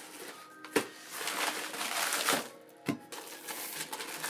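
Plastic packaging crinkling and rustling as a rolled mat wrapped in plastic film is pulled out of a poly bubble mailer and unwrapped, with two sharp taps, one about a second in and one near three seconds. Quiet background music underneath.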